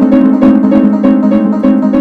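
Fire alarm notification device sounding a loud, rapidly repeating tone that pulses about four to five times a second.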